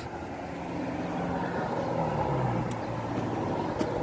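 A motor vehicle's engine running, its sound swelling over the first second and its low hum dropping in pitch about two seconds in. There are two light clicks later on.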